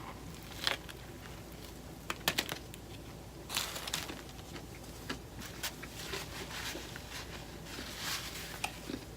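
Quiet close-up eating sounds: a person chewing, with scattered mouth clicks and short crinkling rustles every second or few.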